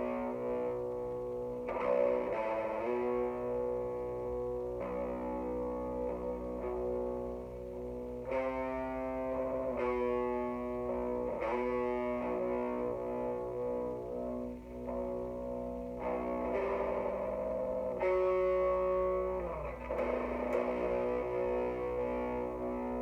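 Distorted electric guitar, a Jackson X Series SCX3H through an Orange Crush Mini 3-watt amp boosted by a Boss ODB-3, playing a slow doom riff of held, ringing chords that change every couple of seconds. There is a downward slide about three-quarters of the way through.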